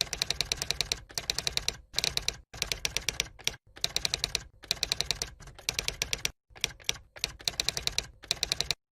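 Rapid typewriter-style key clicking, about ten clicks a second, in short runs of about a second with brief pauses between them.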